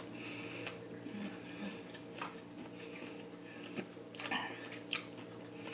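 A person chewing a mouthful of food with the mouth closed, with soft mouth sounds. A few light clicks come near the end as a fork reaches into a cardboard takeaway box.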